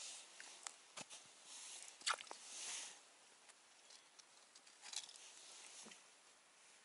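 Faint rustling with scattered small clicks and taps: an angler handling a freshly caught fish and his ice-fishing tackle.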